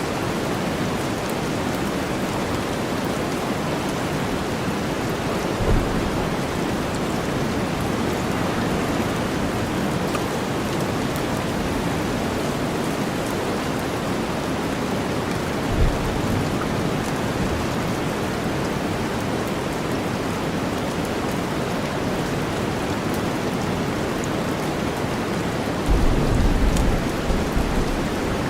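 Steady rain mixed with deep white noise, an even hiss. Two brief low thuds about 6 and 16 seconds in, and a longer low rumble near the end.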